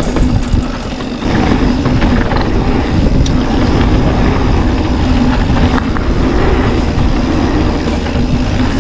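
Mountain bike rolling fast down a dirt and gravel trail: a steady rumble of tyres on loose ground and wind on the camera microphone, with scattered rattles and clicks from the bike. It drops briefly about a second in.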